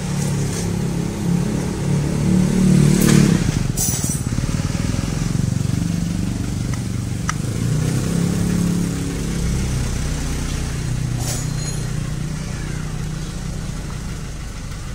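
A motor vehicle engine running close by, its pitch rising and falling, louder over the first few seconds and easing off after about ten seconds. A couple of sharp clicks sound about three and four seconds in.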